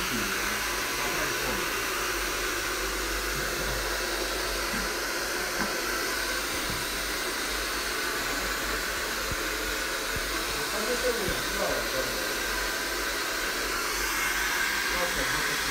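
Hand-held hair dryer blowing steadily at a client's hair.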